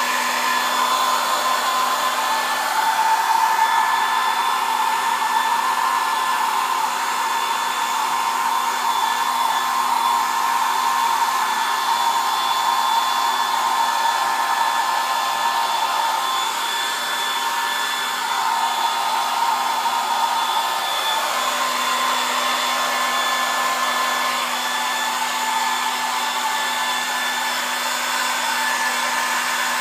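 Handheld hair dryer running continuously, a steady rush of blown air with a constant motor whine over it.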